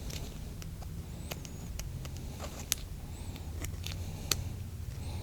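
Faint, scattered small clicks and taps from hands handling a metal relay shaft while new rubber O-rings are fitted onto it, over a steady low hum.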